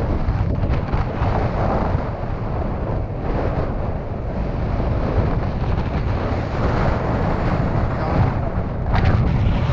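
Strong wind buffeting the microphone: a steady, loud low rumble with gusts.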